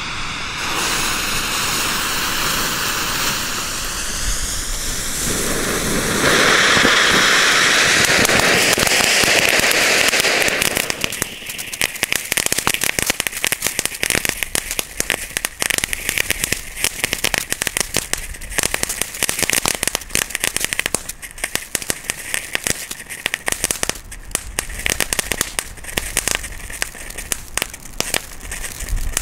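Small ground fountains (youth fireworks) burning, with a steady hiss of spraying sparks that grows louder about six seconds in. From about eleven seconds in it gives way to dense, rapid crackling.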